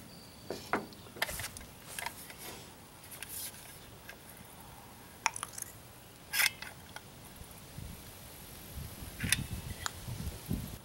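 Scattered clicks, knocks and scrapes of a caulking gun being worked and plywood pieces handled, with a few sharp clicks around the middle and near the end.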